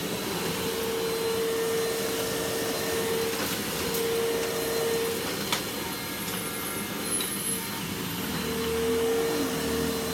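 Vacuum cleaner running steadily at full speed: a high motor whine over rushing air, with a single sharp click about five and a half seconds in.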